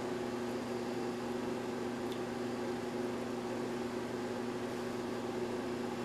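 Steady low electrical hum over a constant hiss: room tone, with one faint click about two seconds in.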